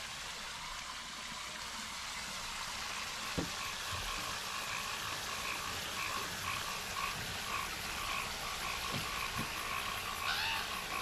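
Water pouring from a culvert pipe and splashing onto rocks, a steady rush. Over it runs a rhythmic pulsing animal call, about three pulses a second, with a few soft knocks.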